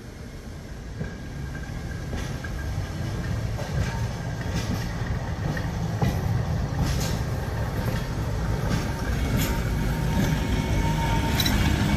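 1908 Twin City Rapid Transit wooden streetcar rolling out on its rails, its low rumble growing steadily louder as it approaches, with scattered sharp clicks from the wheels over rail joints and switches and a faint steady whine.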